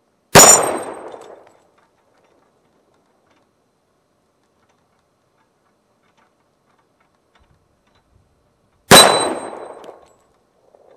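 Two shots from a Kimber .45 ACP pistol, one just after the start and one near the end about eight and a half seconds apart. Each shot carries a short metallic ring from the struck steel plate target and dies away over about a second and a half.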